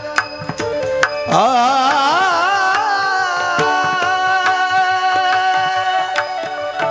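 Devotional bhajan singing: a male voice swoops up about a second in and holds one long, high note with wavering vibrato over steady sustained accompaniment, with pakhavaj drum strokes.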